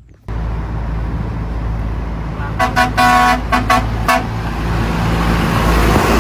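A heavy engine running steadily, cutting in abruptly about a third of a second in. A vehicle horn sounds in a quick series of about five short toots near the middle.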